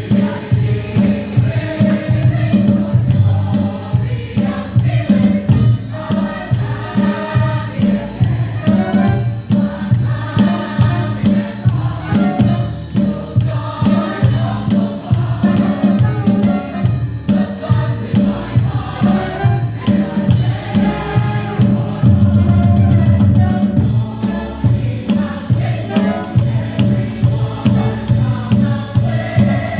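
A group of voices singing together over a musical accompaniment with a steady beat.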